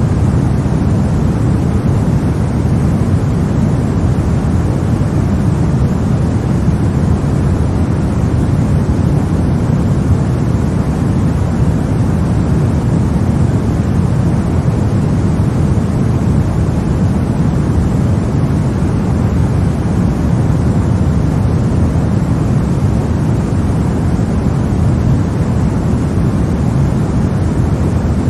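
White noise for baby sleep: a steady, unchanging noise, deep and strongest in the low range, with no tones, rhythm or breaks.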